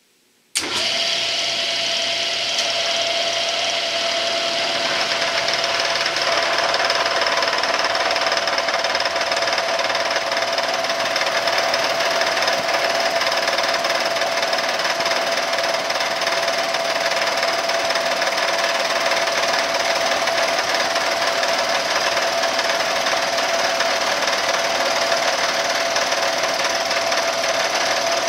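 Bridgeport milling machine's end mill cutting a slot in a solid aluminum block by conventional milling: a steady cutting noise with one steady tone running through it. It starts suddenly about half a second in.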